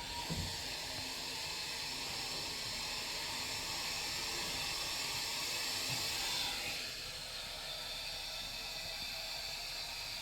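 Passenger lift car travelling between floors, heard from inside: a steady rushing hiss that eases down about seven seconds in.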